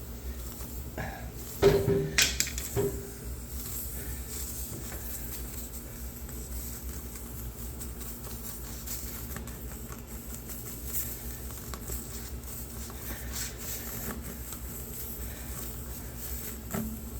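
Tire repair reamer being worked in and out of a puncture hole in a tire, scraping and rasping against the rubber to clean the hole out before plugging. A few louder knocks come near the start.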